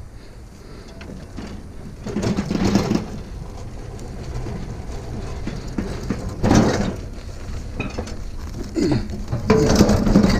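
Heavy metal scrap being handled and loaded: clanking and scraping in a few bursts, about two seconds in, around seven seconds, and again near the end, over a low steady hum.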